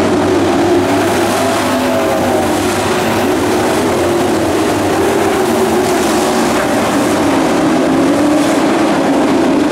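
Pack of dirt-track Pro Truck race trucks running at racing speed, several engines at once, loud and steady, their pitches wavering as they rise and fall through the laps.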